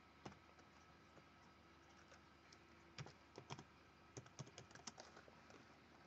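Faint keystrokes on a computer keyboard: one tap shortly after the start, then a scattered run of taps from about three seconds in until shortly before the end.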